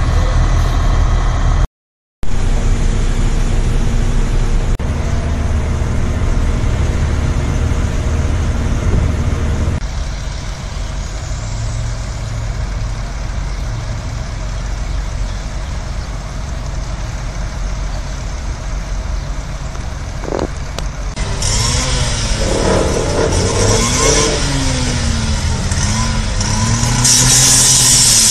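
Heavy diesel engines of fire trucks running steadily. About two-thirds of the way in a loud hiss joins, along with a low tone that wavers up and down.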